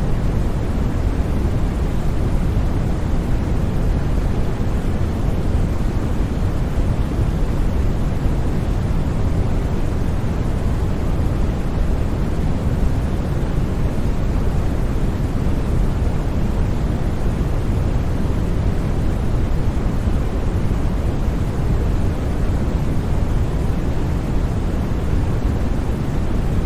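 Steady white noise for sleep: a constant, unchanging rush, deep and rumbly, with little high hiss.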